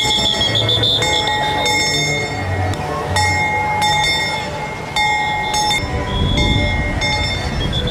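Trackless parade road train passing, sounding repeated bell-like ringing tones in spells of about a second, over street crowd noise.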